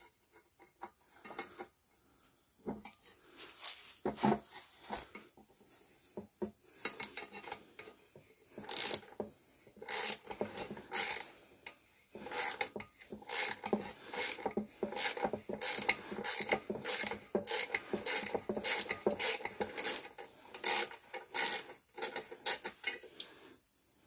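Small twisted-wire brush scrubbing the perforated burner tube and burner base of a Vaillant gas wall boiler during cleaning: short rasping strokes, a few scattered ones at first, then steady scrubbing at about two strokes a second from about a third of the way in.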